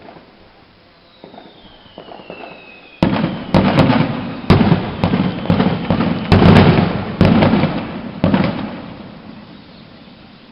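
Fireworks going off. A whistle falls in pitch after a few faint pops, then a rapid volley of about a dozen loud bangs follows, and the sound trails off in a fading rumble.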